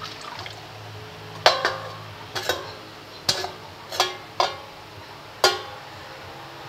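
Stainless steel saucepan knocked against a steel oil-drain bowl: a run of about six sharp metal clanks, irregularly spaced, each ringing briefly, as it is tipped to empty used engine oil.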